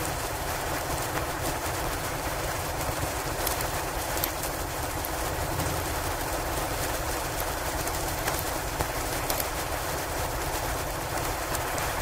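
Steady blizzard wind ambience, an even rushing noise, with a faint crackle of a log fire now and then.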